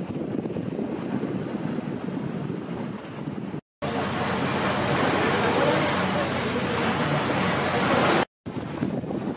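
Wind and sea noise aboard a frigate at sea: a steady low rush, then, after a brief drop to silence about three and a half seconds in, a louder, hissier rush of wind. It cuts to silence again for a moment near the end and returns to the low rush.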